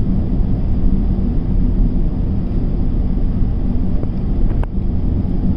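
Steady low road rumble of a car driving, heard from inside the cabin, with a small click about four and a half seconds in.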